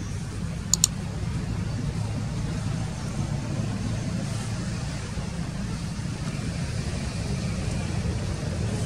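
Steady low outdoor rumble, with two sharp clicks close together about a second in.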